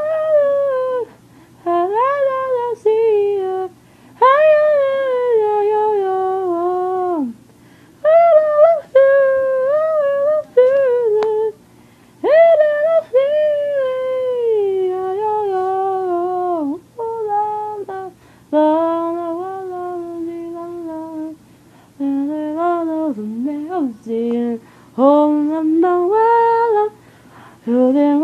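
A woman humming a slow, wordless melody in phrases of long held notes that slide between pitches, close to the microphone.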